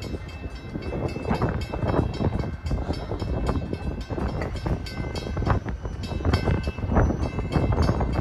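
Amtrak train hauled by an ACS-64 electric locomotive running on the track: a rattling, clattering wheel-and-rail noise with a faint steady high whine.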